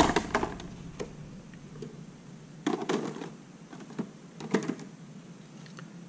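Clear rigid plastic clamshell packaging being opened and handled: short clicks and crackles of plastic, in a few brief clusters at the start, about 3 s in and about 4.5 s in.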